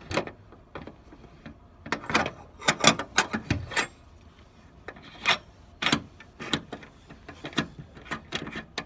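Irregular small metallic clicks and scrapes of hands working a brass retaining ring off a cam lock, with the metal parts knocking and rubbing against each other.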